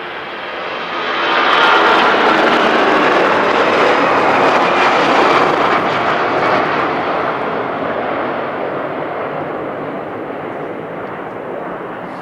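Jet airliner's engines passing close. The sound swells quickly to its loudest about two seconds in, with a falling pitch, then slowly fades away.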